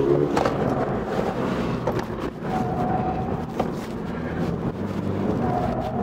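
Toyota GR86's 2.4-litre flat-four engine heard from inside the cabin, its note rising and falling as the car is driven hard through a slalom, with road and wind noise.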